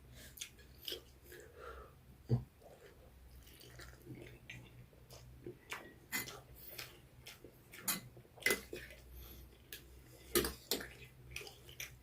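Dishes and utensils being handled: irregular sharp clinks and knocks, the loudest about two and a half, eight and a half and ten and a half seconds in, over a faint low hum.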